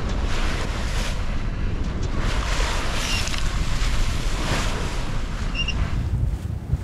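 Wind buffeting the microphone over the rush of waves along a sailboat's hull as it pounds upwind through a choppy sea, with spray hissing over the bow about two and a half seconds in and again near four and a half seconds.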